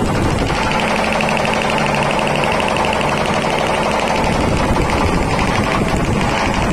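Reciprocating air compressor running under its electric motor: a loud, steady mechanical run with a fast, even pulsing from the pump.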